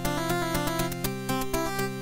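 Upbeat 8-bit chiptune background music, a bright stepping melody over a steady beat of about four hits a second.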